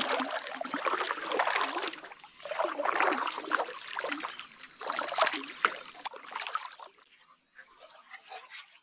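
Water splashing and trickling in uneven bursts, dying away to a faint trickle about seven seconds in.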